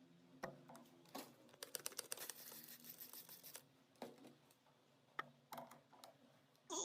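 Faint handling noise: scattered clicks and knocks, with about two seconds of quick rapid clicking and scraping about a second in, and a short scrape near the end.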